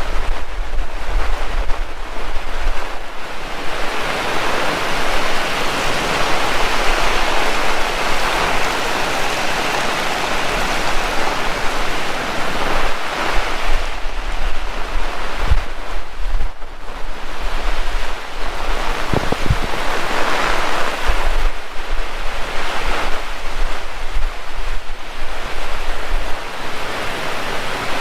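Heavy tropical rain pouring down steadily, swelling and easing, with low gusts of wind buffeting the microphone.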